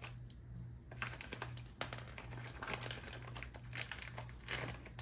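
Small metal hardware (bolts, washers and locking nuts) being handled, giving irregular light clicks and rattles, with a low steady hum underneath and a sharper click near the end.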